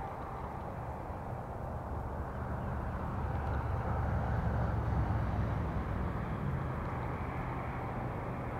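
Low engine rumble from a distant vehicle, swelling about halfway through and then easing off.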